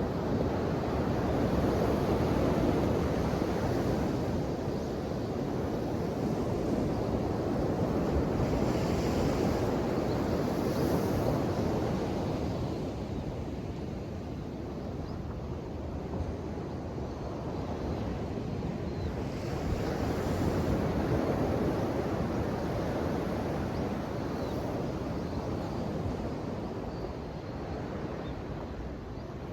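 Ocean waves breaking and washing ashore: a continuous rushing surf that swells and eases several times.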